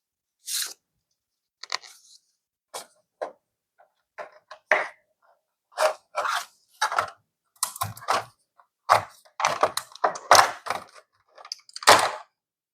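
Close-miked handling of art-kit packaging and items: irregular taps, crinkles and rustles, sparse at first and busier in the second half, with a few soft thumps.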